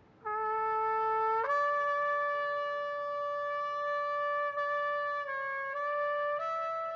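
Slow solo melody on a brass instrument, one note at a time: a first note enters shortly after the start, then a long note is held for several seconds before the line steps down and back up to a higher note near the end.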